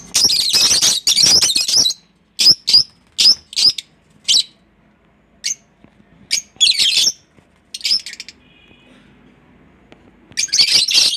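Lovebirds squawking and chirping: a shrill, dense chatter for the first two seconds, then a quick run of short sharp calls and a few single chirps, with another burst of squawking near the end.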